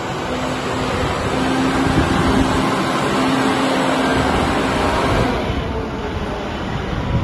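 Backhoe loader's diesel engine running steadily as the machine drives, under a dense rushing noise. It grows louder over the first two seconds and eases off about five seconds in.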